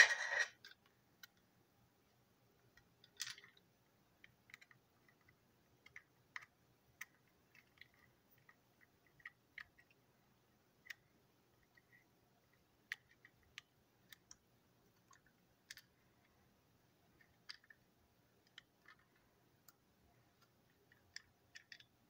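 Scattered small clicks and taps of a small screwdriver and plastic parts as a TrackMaster toy van is taken apart, with one louder clatter right at the start.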